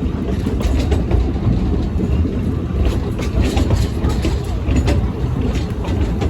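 Narrow-gauge train running along the line: a steady low rumble with scattered faint clicks from the wheels and coaches.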